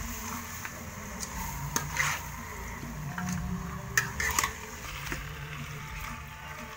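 Metal slotted spatula stirring duck pieces in an aluminium pan, with a few sharp clinks of metal on metal about two seconds in and again around four seconds in.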